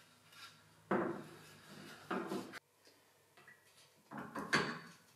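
Handling noise from a long metal strap: two knocking, scraping bursts in the first half, the second cut off abruptly. Near the end comes a quick cluster of clanks as the strap is set against a bench vise and the vise handle is worked.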